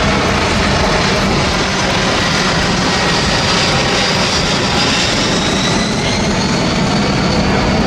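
Boeing C-17A Globemaster III's four Pratt & Whitney F117 turbofan engines running during a flypast: a loud, steady jet noise with a high whine that slowly rises in pitch through the second half.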